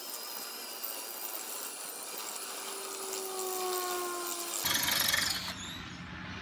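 Cordless hammer drill, in drill-only mode with the hammer off so as not to crack the tile, boring a masonry bit through a roof tile. The motor's whine sinks in pitch under load a few seconds in. The grinding is loudest around five seconds in, then the drill stops about a second before the end.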